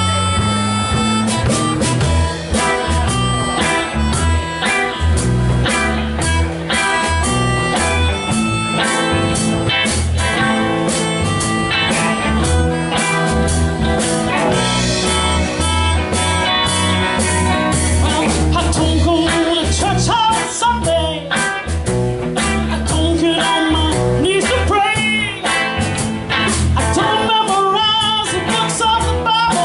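Live blues-rock band playing a slow blues groove: electric guitars, bass and drums, with a harmonica played into a handheld bullet mic for an amplified, overdriven harp sound.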